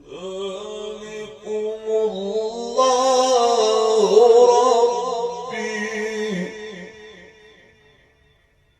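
A male Quran reciter chanting one long, melismatic phrase of Quranic recitation, the ornamented line swelling to its loudest about halfway through and fading away near the end.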